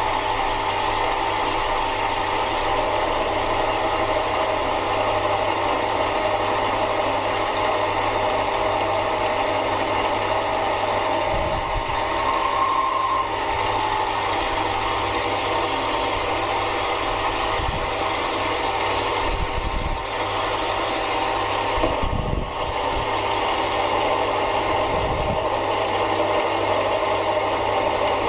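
Mini lathe running with its spindle and chuck turning an aluminium workpiece as the cutting tool takes a cut: a steady machine hum, with a few short low thuds now and then.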